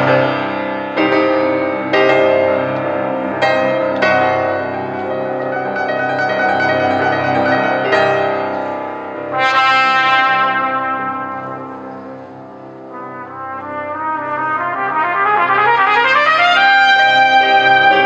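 Cornet solo: a series of loud held notes, then a rising run that climbs to a high held note near the end.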